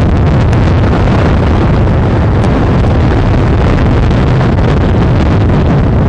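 Strong wind buffeting the microphone: a loud, steady rushing noise heaviest in the low end.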